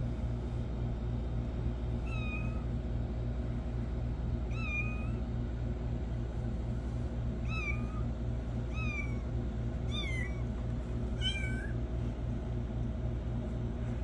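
Young kitten mewing: six short, high mews, a few seconds apart at first and then coming closer together.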